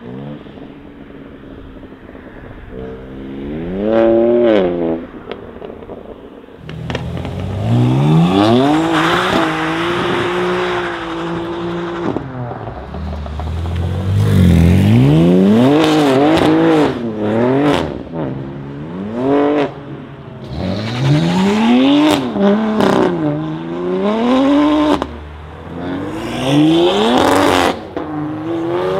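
BMW M3 G80's twin-turbo straight-six through an R44 performance exhaust, revving: one quick blip about four seconds in, then from about seven seconds a run of hard revs rising and falling over and over as the car drifts.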